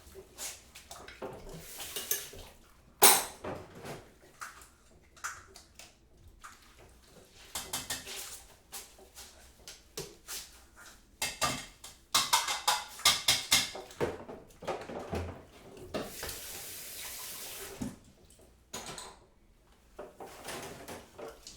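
Kitchen work: crockery and cutlery clinking and clattering in bursts, with one sharp knock about three seconds in and a busy run of clatter in the middle. Near the end a tap runs steadily for about two seconds.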